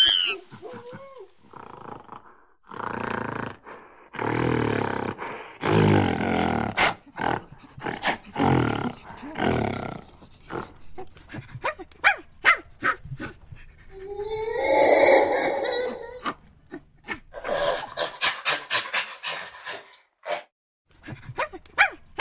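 Monkeys calling: a run of long, hoarse, rasping calls, then a stretch of quick short chattering sounds with one pitched, wavering call about two-thirds of the way through.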